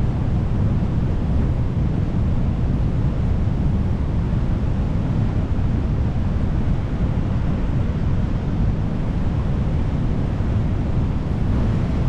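Steady rushing of the Garonne river in flood, fast, churning water below the Bazacle weir, with wind buffeting the microphone.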